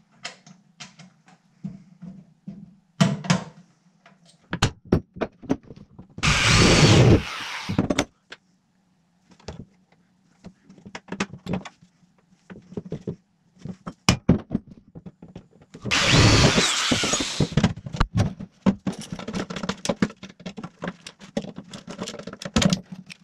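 A power drill run in two bursts of about a second and a half each, amid many sharp clicks and knocks of small metal parts and tools handled against an aluminium box.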